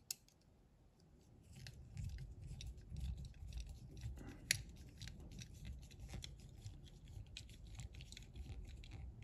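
Small screwdriver turning a tiny screw into the base of a die-cast model pickup: one sharp click at the start, then a long run of faint, irregular scratchy clicks from about a second and a half in as the screw is driven home.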